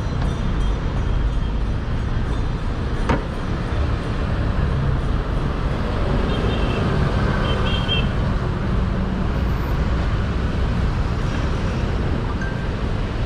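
Busy city street traffic: a steady low rumble of cars and buses running close by, with one sharp click about three seconds in.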